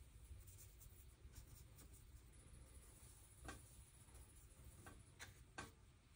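Near silence: a low room hum, with a few faint clicks in the second half as a paintbrush taps and stirs in a plastic watercolor palette well.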